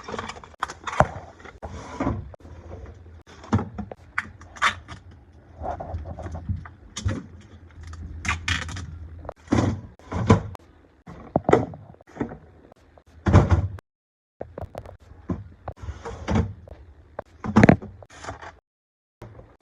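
A string of irregular knocks and clunks from a refrigerator door and its fittings being handled, opened and shut, with a low hum underneath in places. The sound drops out abruptly twice, about two thirds of the way in and near the end.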